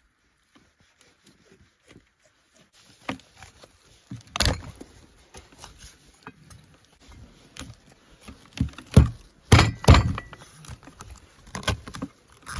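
Large kitchen knife splitting a raw whole chicken in half on a wooden cutting board: crunching through the bones and thudding against the board. There is one strong thud about four seconds in and a cluster of the heaviest thuds around nine to ten seconds in.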